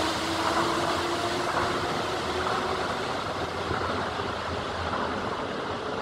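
A Tokyo Monorail train running away down the tunnel just after leaving the station: a steady rumble and hiss that slowly dies down, with a faint motor tone that creeps upward in pitch.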